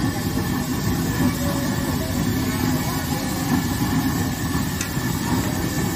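Potato pakoras deep-frying in a large wok of hot oil: a steady sizzle over a steady low rumble.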